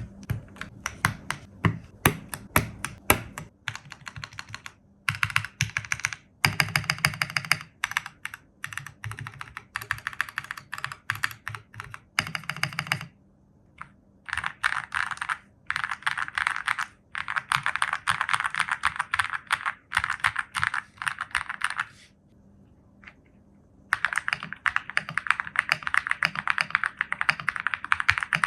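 Typing on an ND75 mechanical keyboard fitted with stock, unlubricated Akko Crystal Silver switches. It starts with single separate keystrokes, then moves to runs of fast typing with a couple of short pauses.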